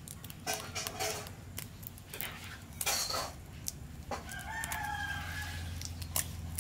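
A rooster crowing: a short call about half a second in, then a longer crow of well over a second from about four seconds in. A few sharp taps and clicks as an eggshell is cracked by hand over a bowl.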